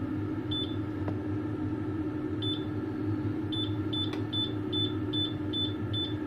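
Electric hob's touch controls beeping as it is switched on and the heat is turned up: two single short beeps, then a run of seven quick beeps, about two and a half a second. A steady low hum runs under them.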